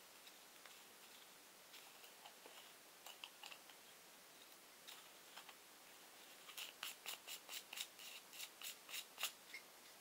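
Knurled screw cap of a nickel-plated brass rifle oil bottle being turned by hand on its threads: a few faint scrapes, then a quick run of about a dozen small metallic clicks, around five a second, over the last few seconds.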